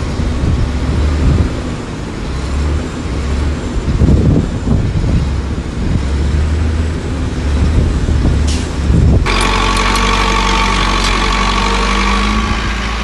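Heavy diesel earthmoving machinery running, a low, uneven rumble with occasional knocks. About nine seconds in it switches abruptly to a steadier engine sound with a higher whine.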